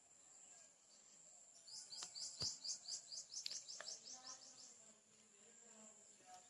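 A bird singing a fast run of short, falling chirps for about three seconds, over the steady high drone of insects. A few sharp clicks come during the song.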